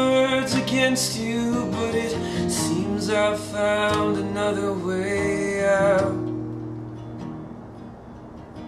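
A man singing over a strummed acoustic guitar. About six seconds in the voice stops and the guitar carries on alone, quieter.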